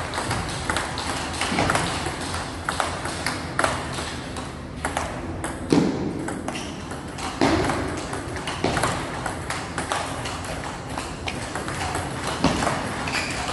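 Table tennis rally: the celluloid ball clicking off paddles and the tabletop in an irregular back-and-forth run of sharp pocks.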